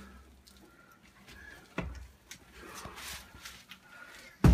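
Knocks and bumps from a stainless steel exhaust pipe section being handled and lowered through a deck hatch. There is a thump about two seconds in and a heavier thump near the end.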